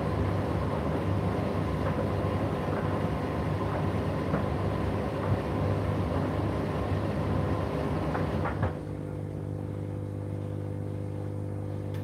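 Indesit IDC8T3 condenser tumble dryer running: a steady motor hum under the noise of the drum tumbling, with scattered light knocks. About two-thirds of the way through, the tumbling noise stops abruptly and only a quieter, steady hum remains.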